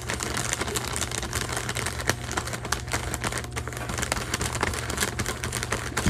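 Plastic potato chip bag crinkling with rapid, irregular small crackles as a kitten noses and licks into it, over a steady low hum.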